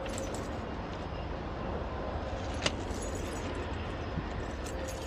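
Diesel locomotives of an approaching freight train running, a steady low rumble, with one sharp click about two and a half seconds in.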